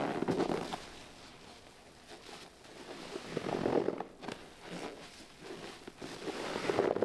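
A sponge soaked in Tydbol cleaning liquid being squeezed, giving wet, crackling squelches as the liquid is pressed out. There are three squeezes about three seconds apart: one at the start, one a little past the middle and one at the end.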